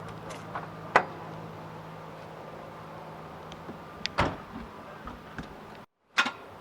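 Sharp clicks and knocks over a steady low electrical hum as the Ford Escort is tried for a start with a newly fitted battery; the engine does not crank or fire. The loudest click comes about a second in.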